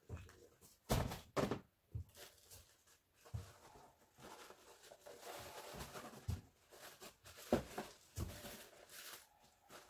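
Large cardboard boxes being shifted and pulled about in a pickup truck bed: several knocks and thumps, with rustling of cardboard and plastic wrap through the middle.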